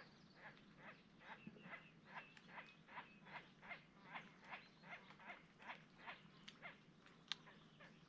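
A faint animal call from the reeds: a steady series of short harsh notes, about three a second, that stops about seven seconds in, followed by a single sharp click.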